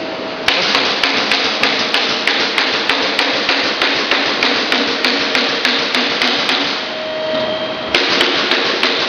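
Machinery knocking in a rapid, even rhythm, about three sharp knocks a second, over a constant noisy hum. The knocking stops for about a second near the end, leaving a steady hum with a single held tone, then resumes.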